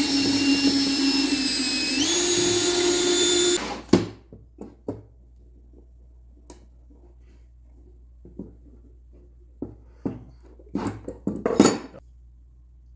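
Electric drill running steadily with a whine, boring excess glue out of the inside of a screwdriver handle; its pitch steps up about two seconds in, and it stops just before four seconds. Scattered knocks and taps follow, with a louder cluster near the end.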